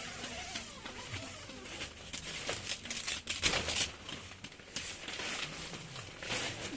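Rustling and crinkling handling noises, with scattered short clicks and knocks.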